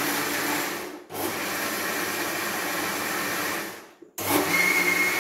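Electric mixer grinder pulsed in short runs while grinding grated coconut and kappi into appam batter. It runs, cuts out briefly about a second in, runs again for nearly three seconds and winds down, then starts again near the end, louder and with a steady high whine.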